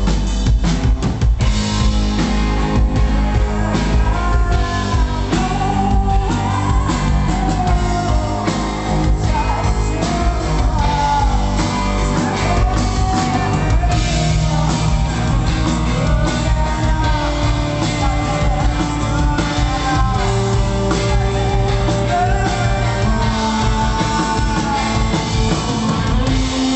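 Rock band playing live: singing over drums and guitar.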